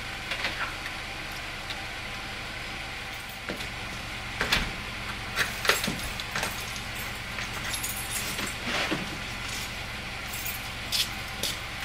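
A car engine idling steadily, heard from inside the cabin with the driver's door open, with scattered clicks and clinks through it.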